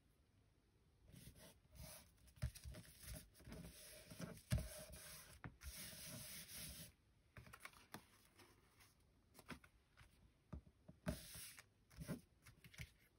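Hands pressing and smoothing a freshly glued sheet of patterned paper onto a card base: faint paper rubbing and rustling for several seconds, then a few soft taps and ticks near the end.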